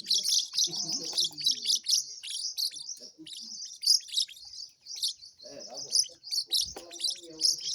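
Many small birds chirping and twittering at once, a dense, continuous chatter of rapid high-pitched notes.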